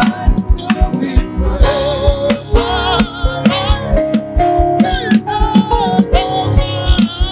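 Worship song: a singer over a band with drum kit and guitar keeping a steady beat.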